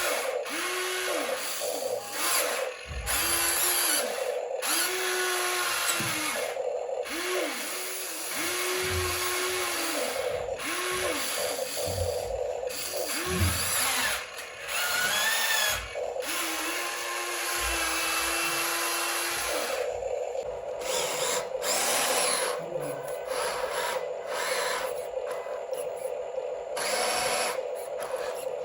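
Small electric motor of a radio-controlled model whining, speeding up and slowing down again and again in short bursts, over a steady hum.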